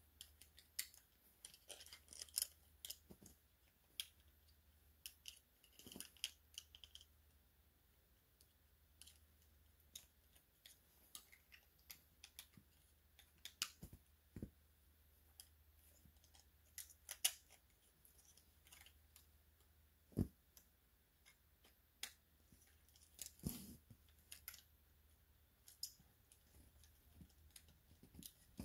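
Faint, irregular clicks and snaps of hard plastic toy parts being moved and ratcheted, a Transformers figure being transformed by hand.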